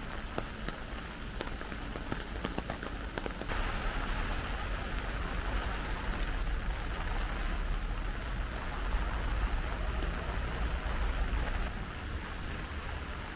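Steady rain falling on wet pavement, an even hiss, with a scatter of sharp drop ticks in the first few seconds.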